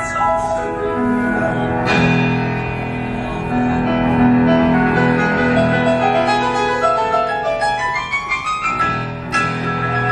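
Upright piano played live, slow held chords with a stepwise rising run of notes about eight seconds in.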